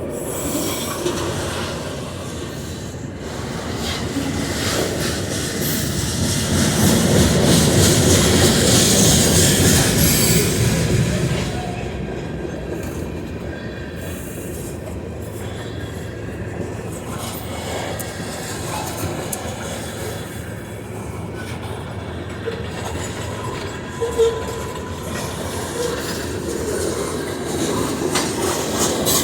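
Train cars rolling past on the track, wheels clacking over rail joints with some wheel squeal; the noise swells loudest about a quarter of the way through, then settles to a steady rumble.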